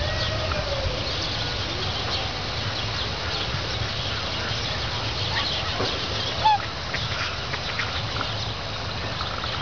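Waterfowl calling over steady low background noise, with one short, sharp high call about six and a half seconds in.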